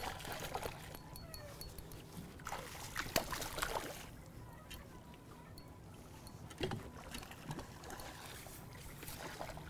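Hooked striped bass thrashing and splashing at the surface beside a kayak, in three short spells of splashes with quieter gaps between them, over a faint steady low hum.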